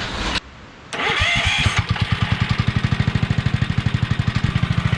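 Small single-cylinder engine on a homemade drift quad, fitted with an exhaust header and an upgraded carburetor, starting about a second in and then settling into a fast, even idle.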